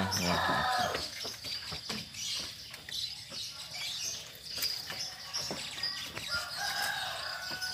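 Farmyard sounds: chickens clucking and small birds chirping, with a longer held call near the end. Scattered knocks come from goats moving and feeding in a wooden slatted pen.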